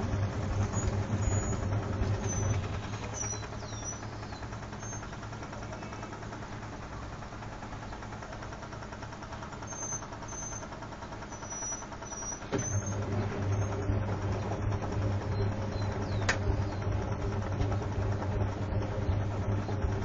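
Whirlpool front-loading washing machine working through a wash phase, with suds sloshing in the drum and a steady motor hum. The hum drops away for several seconds, then starts again with a click about twelve seconds in.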